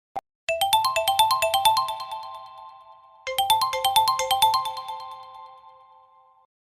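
A built-in ringtone playing on a 360 N6 Lite smartphone: a short click, then a quick melody of short plucked-sounding notes, about four or five a second. It plays as two phrases, each fading away, the second beginning about halfway through.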